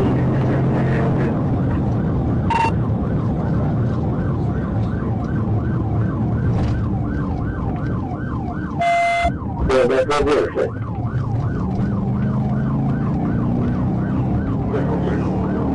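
Police cruiser's siren on a fast yelp, about three rises a second, over the engine and road noise of the car in a high-speed pursuit. About nine seconds in, a short beep and a brief burst of noise cut across it.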